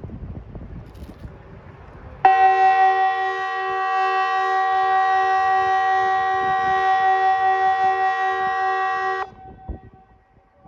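Kockum Sonics ET 751 electronic civil defence siren sounding one steady, harsh multi-tone blast of about seven seconds that starts and stops abruptly, a couple of seconds in. This is one blast of the Swedish 'Important message to the public' warning signal (seven seconds on, fourteen off), sounded at the quarterly siren test. Wind noise is heard before it, and a fainter tone lingers briefly after it stops.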